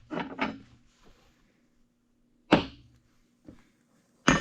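Steel gearbox parts knocking against each other: a couple of light knocks at the start, a sharp clank about two and a half seconds in, and a louder ringing metal-on-metal clank near the end.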